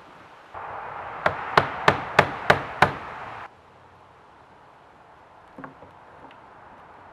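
Hammer blows on wood: six quick, evenly spaced strikes, about three a second, as when driving a nail, followed by a couple of faint knocks.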